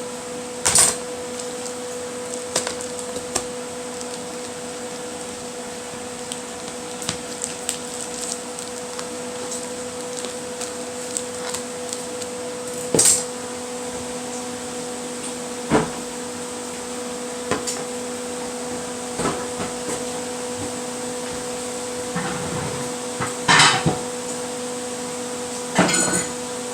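Cookware and utensils knocking and clinking against pans and dishes every few seconds, over a steady hum. The knocks are loudest near the end.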